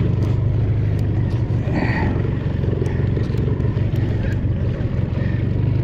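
Small boat's outboard motor running steadily at low speed, a constant low hum with a few faint ticks over it.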